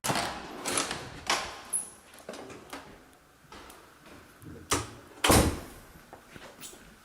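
A series of knocks and clunks, as of a door or cabinet being handled, the loudest two about five seconds in.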